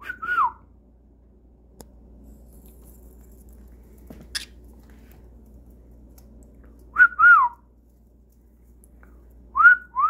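A short two-note whistle, a steady note followed by a downward glide, heard three times: at the start, about seven seconds in, and near the end. There is a small click about four seconds in.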